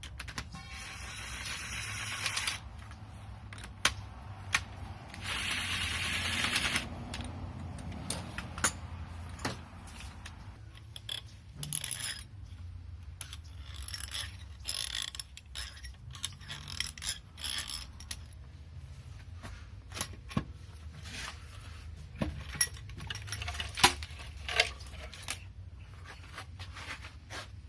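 Metal hand tools and engine parts clinking, clicking and scraping while the cylinder head of a VW 1.8T engine is taken apart. Two longer noisy stretches of about two seconds each come in the first seven seconds, with scattered sharp clinks after them.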